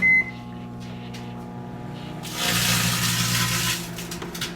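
Microwave oven beeps once as it is started, then runs with a steady hum. About two seconds in, a loud hissing crackle lasts about a second and a half as the empty foil-lined chip bag inside shrinks in the heat.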